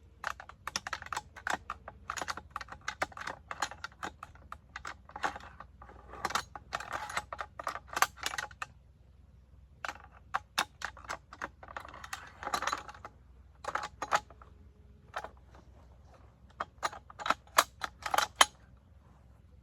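Rapid, irregular clicks and clacks of PKM machine gun parts being handled, metal on metal. They come in bursts, with short pauses about nine and fifteen seconds in.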